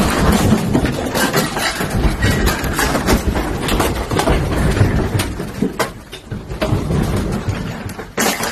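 Shelves, books and ornaments rattling and knocking during strong earthquake shaking, over a low rumble. The rattling eases off from about six seconds in, with one sharp knock near the end.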